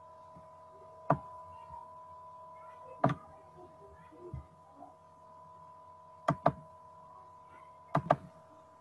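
Sharp clicks or knocks, single ones about one and three seconds in, then two quick double clicks near the end, over a steady electrical whine.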